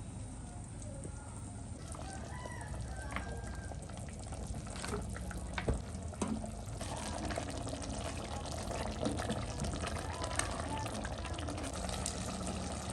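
Water running from a kitchen tap, growing louder about seven seconds in, with a few clinks of utensils before it.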